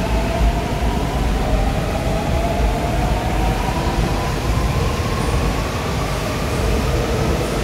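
Seoul Subway Line 4 electric train running through the station without stopping: a steady rumble of wheels on rail, with the traction motor whine rising slowly in pitch as the train accelerates.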